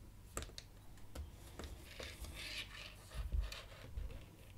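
Quiet handling sounds: a few light clicks and soft rubbing as hands fit crimped wire leads onto a cordless angle grinder's battery terminals.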